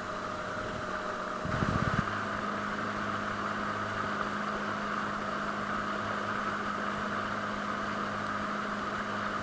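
Small boat's outboard motor running steadily under way, with water rushing along the hull. A brief louder rumble comes about two seconds in.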